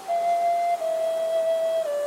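Flute playing a slow melody in long held notes that step gently downward in pitch.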